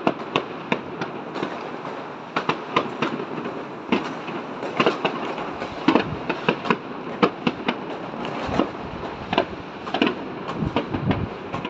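Fireworks going off: a rapid, irregular run of bangs and crackling pops, several a second, over a continuous crackle from many shells at once.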